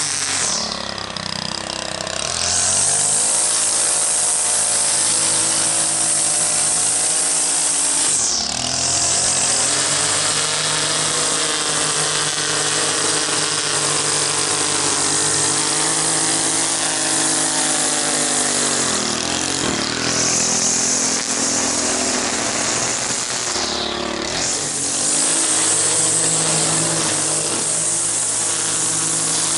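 Gas-powered string trimmer running at high throttle while trimming grass. The engine pitch dips off throttle and climbs back up three times: about a quarter of the way in, about two-thirds in, and again shortly after.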